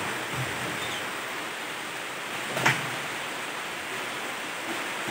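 Steady rushing noise of muddy floodwater, with a single knock about two and a half seconds in.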